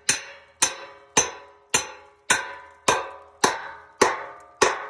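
Hammer driving a spike through the top bracket of a tree-felling jack into a tree trunk: nine evenly spaced blows, a little under two a second, each with a short metallic ring.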